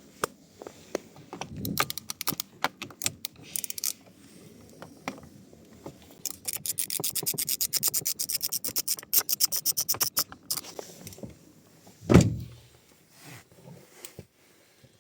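Quarter-inch ratchet with an extension and T30 Torx socket clicking as a steering-wheel airbag bolt is unscrewed: a short run of clicks about two seconds in, then a long fast even run, about nine clicks a second, from about six to ten seconds in. A single low thump comes near the end.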